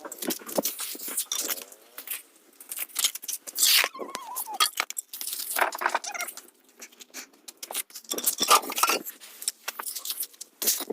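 Brick-laying work: a mason's metal trowel scraping mortar and clinking against bricks in short, irregular strokes.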